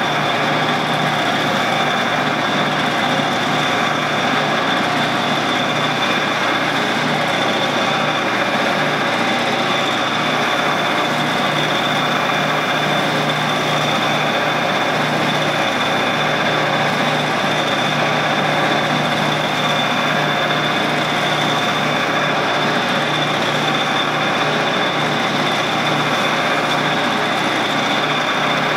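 Shopsmith's motor and drive running steadily, spinning a stainless steel rod being polished with a cloth: a continuous hum with a steady high whine over it.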